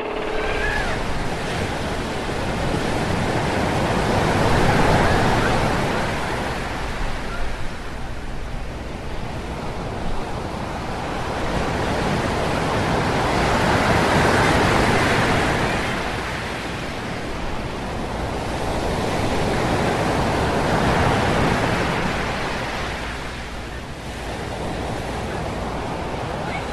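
Sea waves breaking and washing on a beach, swelling and fading in slow surges about every seven to nine seconds, laid over silent film as a sound effect.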